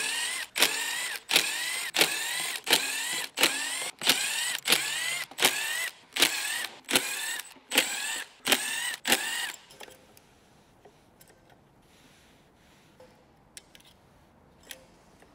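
Cordless screwdriver run in quick repeated bursts, each a short whir that rises in pitch, about three every two seconds, backing out the screws that hold the circuit boards on a hybrid battery's cell modules. The bursts stop about ten seconds in, leaving only faint clicks of handling.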